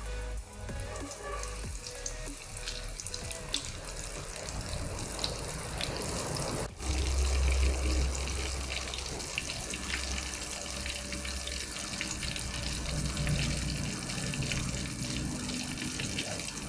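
Flour-coated pork slices deep-frying in hot oil: a steady sizzle with many small crackles.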